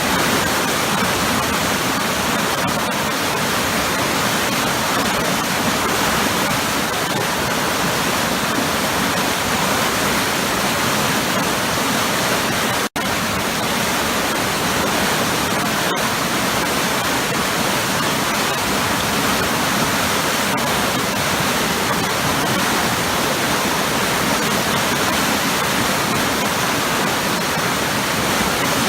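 Waterfall pouring into a powerful churning pool, a steady loud rush of water, broken once about thirteen seconds in by a split-second dropout.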